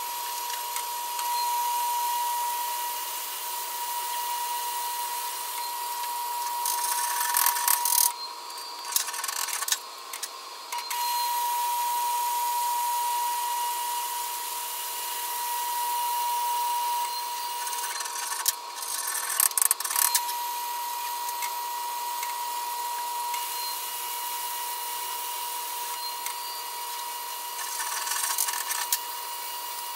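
Welding arc crackling and hissing as beads are run, breaking off briefly a few times between beads, over a steady whine.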